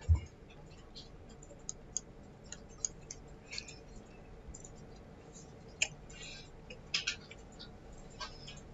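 Computer mouse clicking a handful of times at irregular intervals, with one louder low thump right at the start and a faint steady hum underneath.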